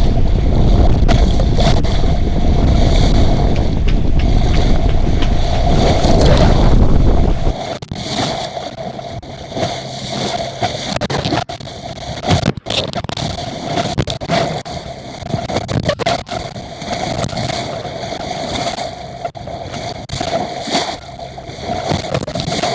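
A small sailing yacht under way in strong wind: wind buffeting the microphone and water rushing and gurgling along the hull. The heavy wind rumble cuts off suddenly about seven seconds in, leaving the water noise with scattered knocks.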